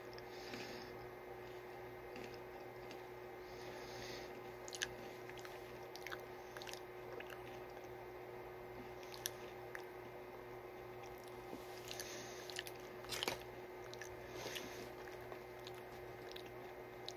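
A person chewing a chocolate cereal bar with marshmallows: faint, scattered crunches and mouth clicks, a few louder ones near the middle and later on, over a steady faint hum.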